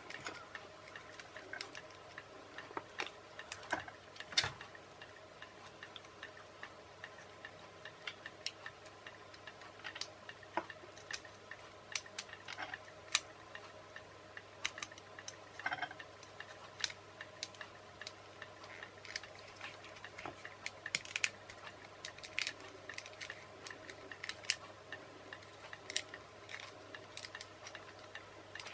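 Irregular small clicks and taps of a plastic RC toy car steering unit being handled and pushed back together by hand, its clip-together plastic parts knocking against each other.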